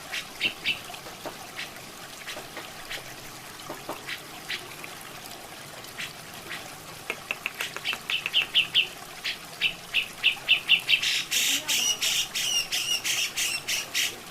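Cucak jenggot (grey-cheeked bulbul) calling. Scattered single notes at first, then from about halfway a fast run of sharp repeated notes that grows louder toward the end, over a steady trickle of water.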